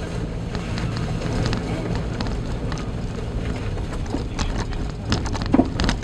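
Car cabin on a rutted, snowy forest road: a steady low engine and road drone, with irregular knocks and clatters from the tyres and suspension over the rough surface. A louder knock comes about five and a half seconds in.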